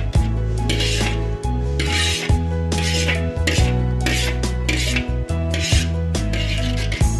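Background music with a steady bass line and evenly repeating hissy percussion hits.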